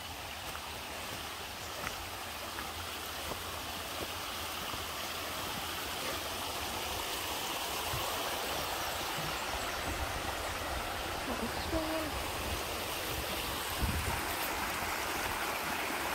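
Small mountain stream rushing and splashing over rocks, its sound growing steadily louder as it is approached.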